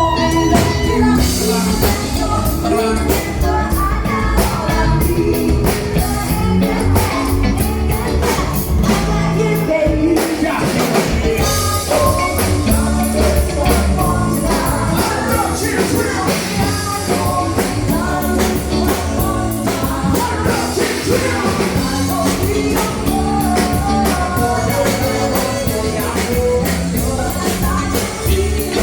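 A rock band playing a song with a singer, with a steady drum beat and guitar.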